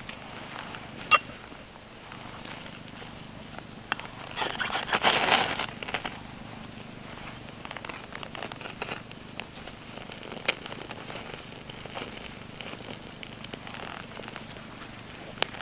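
A sharp click about a second in, then a harsh scrape of about a second and a half from a ferrocerium rod being struck to throw sparks into a tinder bundle. Afterwards, small scattered crackles as the dry tinder and twigs catch fire.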